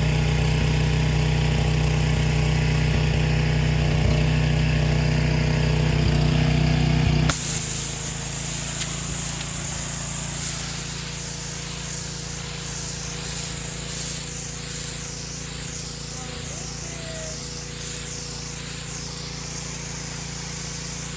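Craftsman gas pressure washer's engine running steadily while the wand sprays. About seven seconds in the sound changes abruptly and turns quieter, with a high hiss of spray that rises and falls.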